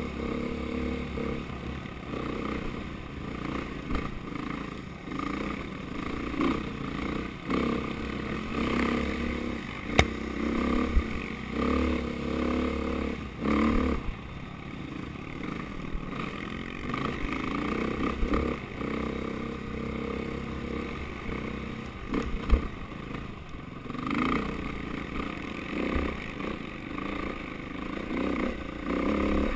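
KTM dirt bike engine running and revving up and down as the bike rides a rocky dirt trail, heard from a helmet-mounted camera, with sharp clattering knocks from the bike going over rocks.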